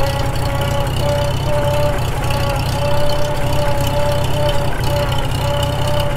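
1942 Farmall H's four-cylinder gasoline engine running with the tractor under way in first gear, over a steady whine from the transmission and rear end. The whine comes from gear sets that were completely disassembled and re-set and have not yet worn in.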